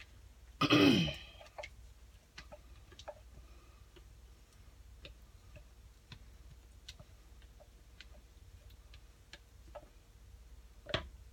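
Light clicks and taps of a spatula against a plastic container as leftover soap batter is poured and scraped out into a bucket mold. A louder scrape with a falling pitch comes about a second in, and two sharper knocks come near the end.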